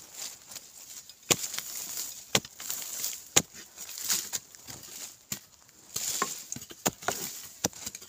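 A digging tool striking hard, dry earth about six times, with loose soil and clods scattering between the strikes.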